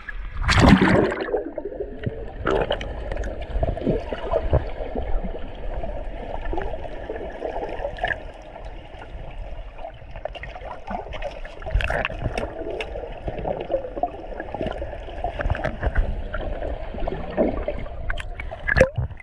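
Water splashing and gurgling around a camera being dipped into clear lake water: a loud splash as it plunges under about half a second in, then a steady muffled underwater wash with many small pops and bubbles, and another splash near the end as it comes back up into the air.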